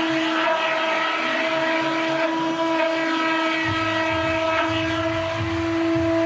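CNC router spindle whining steadily at one pitch while its cutter faces the MDF spoilboard bed. About three and a half seconds in, a lower rumble joins, changing with the machine's motion and cut.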